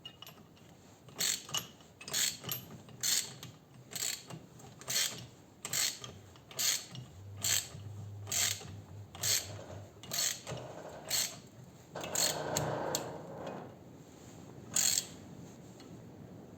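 A ratchet wrench clicking in repeated strokes, about two a second and slowing, as bolts are tightened on a mixer's adjustable pulley, then a brief scraping rub of metal parts.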